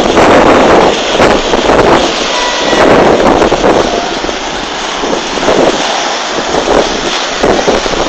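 Storm waves breaking and seawater rushing and churning through a flooded street, loud and surging in swells, with strong wind buffeting the microphone.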